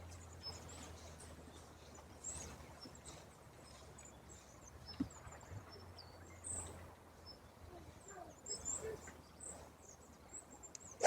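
Birds chirping faintly: many short, scattered high calls over quiet outdoor background noise.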